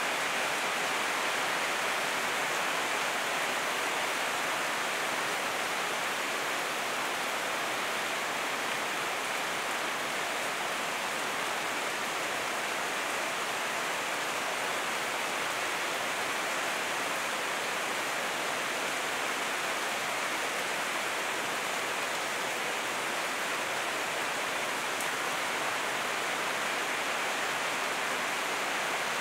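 Heavy rain falling steadily, a continuous even hiss that holds the same strength throughout.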